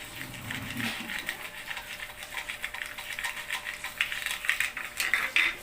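Plastic toy food and play dishes being handled: a run of small, irregular clicks and clinks, busier near the end.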